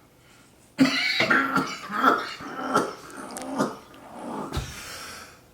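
A man coughing hard and repeatedly: a fit of about seven hoarse, rasping coughs that starts about a second in and grows weaker toward the end.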